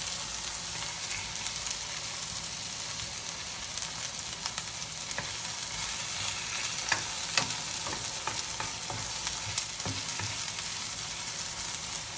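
Chopped onion and tomato sizzling in oil in a frying pan, stirred with a wooden spatula that clicks and scrapes against the pan now and then. The aromatics are being sautéed until lightly brown.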